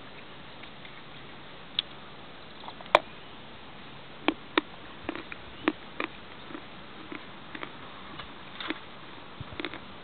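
Close-up biting and chewing of a lump of chalk: a dozen or so sharp, dry crunches and clicks at irregular intervals. The loudest comes about three seconds in, with a quick run of them between four and six seconds.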